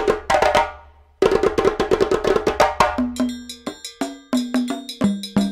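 Percussive background music of rapid, rhythmic pitched strikes. It drops out briefly about a second in, then comes back busier, with lower held notes joining about three seconds in.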